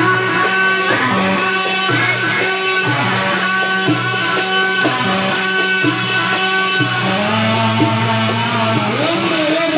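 Loud amplified music: a held melody over a bass line that steps to a new note about every second.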